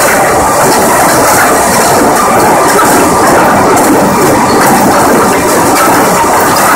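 Lumber transfer chains at a planer infeed running, with boards clattering and knocking as they ride the chains: a steady, dense mechanical clatter.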